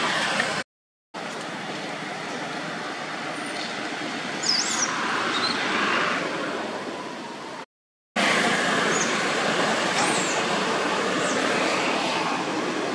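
Steady rushing outdoor background noise, broken twice by short dead-silent gaps, with a few brief high chirps about four and a half and ten seconds in.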